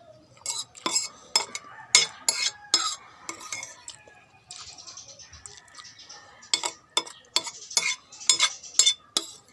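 Spoon clinking and scraping against a bowl of pork soup: a string of sharp clinks, with a stretch of scraping and stirring in the middle before another quick run of clinks.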